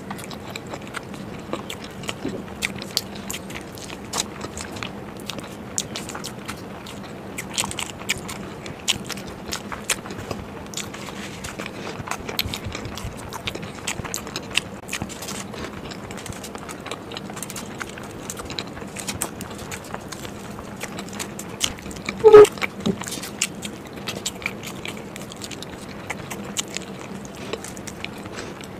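Close-miked eating of whole boiled masala eggs: chewing with many small mouth clicks and smacks throughout. About three-quarters of the way in comes one brief, louder mouth or throat sound.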